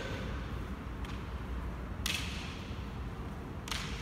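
Kendo bout: three sharp knocks echoing in a large hall, the loudest about halfway through, over faint room noise.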